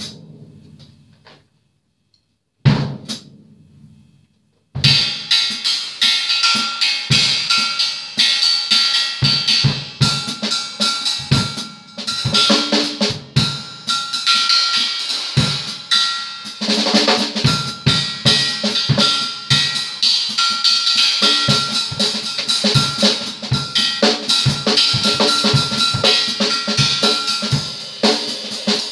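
Acoustic drum kit played with sticks: a couple of single hits that ring out, a short pause, then from about five seconds in a dense, continuous run of drums and cymbals, with a steady high metallic ring sustained over the playing.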